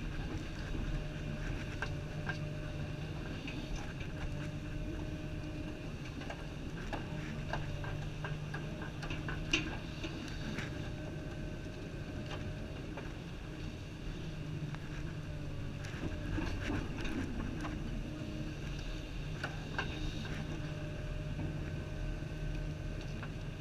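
Komatsu 350 excavator's diesel engine and hydraulics running steadily, heard from inside the cab. Scattered light clicks run through it, with one sharper click about ten seconds in.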